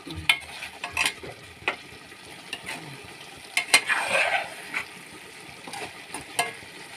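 Steel ladle stirring chicken curry in a stainless steel pot, with scattered clinks and scrapes against the metal over a low sizzle of the gravy cooking; the scraping is busiest about four seconds in.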